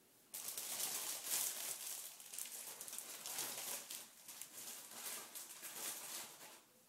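Irregular rustling and crinkling of a thin plastic bag being pulled and fitted over a head of hair. It stops shortly before the end.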